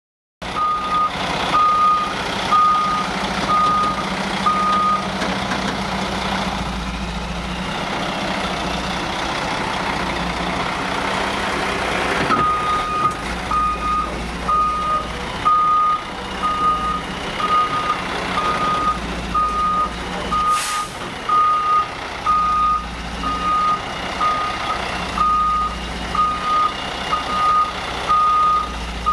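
Reversing alarm of a heavy vehicle backing up, beeping about once a second over its running engine. The beeping stops for several seconds and then starts again. There is a short hiss about two-thirds of the way through.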